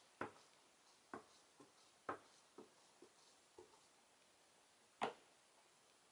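Clear acrylic stamp block being handled and set against a plastic stamp-positioning tool on a craft mat: about eight faint, sharp clicks and taps, the loudest about five seconds in.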